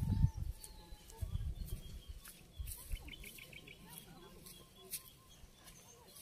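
Birds calling, including a quick run of about eight chirps around three seconds in, over low thumps and rustles of footsteps through grass, loudest in the first two seconds.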